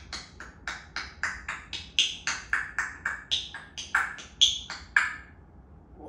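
African grey parrot making a rapid run of about twenty short, pitched clicking pops, roughly four a second and shifting between a lower and a higher note, that stops about five seconds in.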